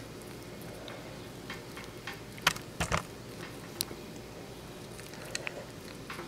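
Hands handling an insulated battery cable end and its connector: scattered small clicks and rubbing, with a louder knock about two and a half seconds in, over a faint steady hum.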